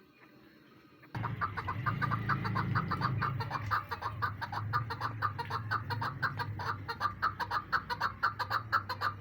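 Female chukar partridge calling: a rapid, even run of clucking notes, about six a second, starting suddenly about a second in, over a steady low hum.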